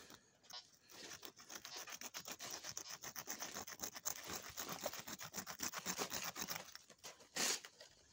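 Fingers rubbing and scratching at the surface of a stone in a fast run of short scrapes, with one louder scrape near the end.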